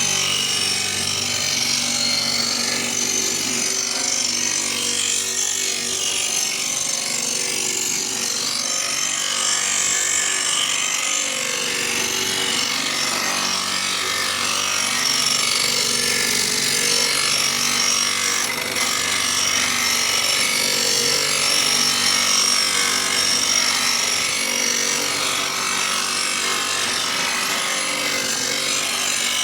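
Electric knife-sharpening machine grinding a wood-chipper knife: the motor hums steadily under a continuous hiss of the wheel against the steel blade.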